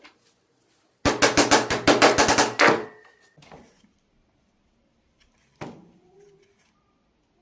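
A rapid run of sharp wooden knocks, about eight a second for under two seconds, then a single knock near the end: wood pieces being hammered or tapped together.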